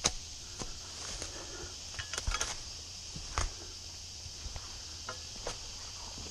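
Boots tramping through wet grass and brush, irregular steps with a few sharper crackles and knocks, the sharpest just after the start and a cluster around the middle. A steady high insect drone runs under them.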